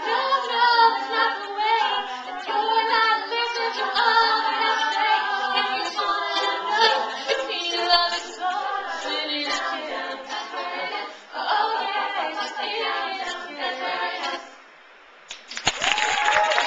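All-female a cappella group singing in close harmony, with several voices in chords and a lead line. The singing ends with a held chord, and after a short gap the audience breaks into applause near the end.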